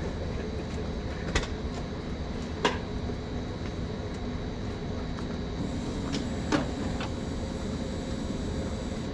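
Steady low background rumble with a few sharp clicks, about one and a half, three and six and a half seconds in, from tools and parts being handled on a car's headlight mechanism.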